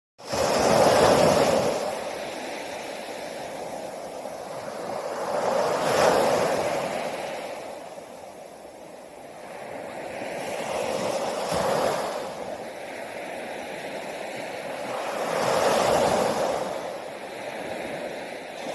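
Sea waves washing onto the shore, the surge swelling and falling back about every five seconds.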